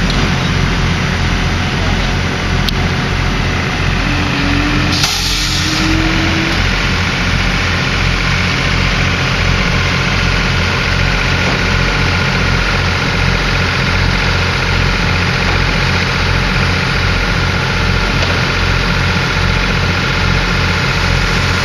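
Diesel-hauled passenger train rolling past: the locomotive engine runs with a steady low throb while the coaches go by. A brief hiss comes about five seconds in.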